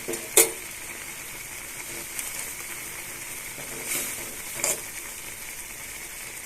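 A kadai of Maggi noodles simmering in spice-laden water, giving a steady bubbling hiss. A few light clicks of a utensil against the pan sound over it, the sharpest about half a second in.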